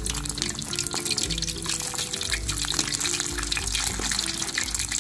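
Pork leg (crispy pata) deep-frying in hot oil on its second fry, sizzling and crackling steadily, with background music.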